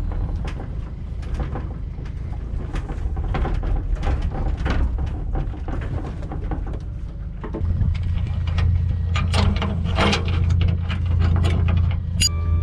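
Aluminium boat and its trailer rattling and clanking while being backed down a boat ramp, over a steady low rumble that grows louder a little past the middle. Near the end come sharp metal clicks from the trailer's bow hook and chain being handled.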